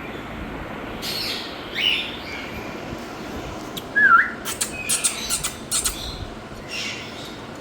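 Pet parrot calling: a couple of short chirps, then a clear whistle that dips and rises about four seconds in, followed by a quick run of sharp clicks.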